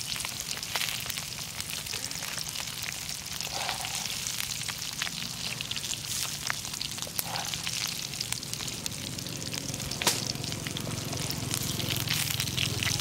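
Crickets frying in hot oil in a wok: a steady sizzle full of small crackles and pops, with one sharper click about ten seconds in.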